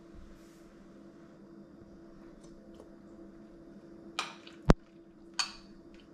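A metal spoon scraping and clinking against a ceramic soup bowl, with one sharp clink a little over four and a half seconds in as the loudest sound, over a steady low hum.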